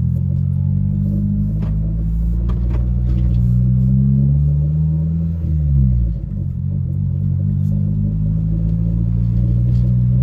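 Turbocharged 1993 Honda Civic's engine pulling while driving, heard from inside the car: the engine note climbs steadily for about four seconds, drops as the revs fall about five to six seconds in, then holds steady.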